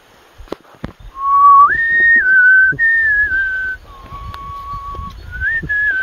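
A person whistling a slow tune in pure held notes. It starts low about a second in, steps up and back down in phrases, holds one long lower note in the middle and ends on a short rising phrase. Wind rumbles on the microphone underneath.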